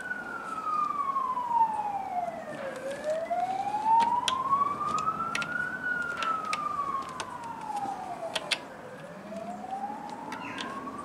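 Emergency-vehicle siren wailing, its pitch sliding slowly up and down about every six seconds. Scattered light clicks and taps sound over it.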